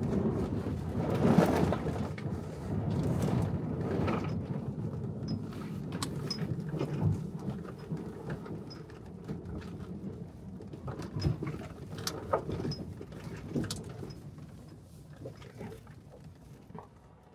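Electric F-150 Lightning Switchgear driving hard over a muddy dirt trail, heard inside the cab: a low rumble of tyres and suspension with scattered sharp knocks of mud and stones hitting the body. The rumble is loudest in the first couple of seconds and eases off toward the end.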